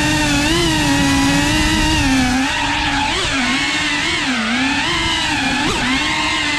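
Cinewhoop FPV quadcopter's brushless motors and ducted propellers whining, heard through the drone's onboard camera. The pitch keeps dipping and rising with throttle changes, with quick sharp blips about three seconds in and again near the end.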